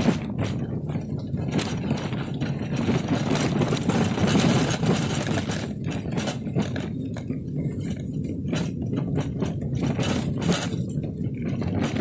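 Cycle rickshaw (trishaw) rolling along a rough dirt track: steady rolling noise from the tyres, with frequent knocks and rattles from the frame and fittings as it goes over bumps.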